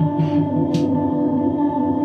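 Live noise music: a steady droning chord over a pulsing low note, with a short hissing burst about three quarters of a second in.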